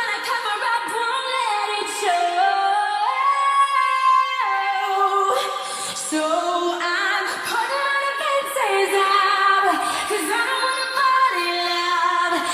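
A woman singing a slow pop melody in long held notes that slide between pitches, with little or no accompaniment under her voice.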